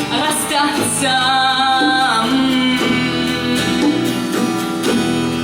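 A song: a singer's voice holds the last word of a line, ending about two seconds in, then the instrumental backing with guitar plays on without vocals.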